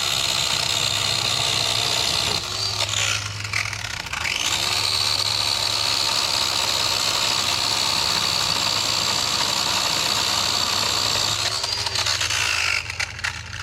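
Small Works electric chainsaw running at full speed with a steady high motor whine. About three seconds in it slows and winds back up, and it winds down near the end.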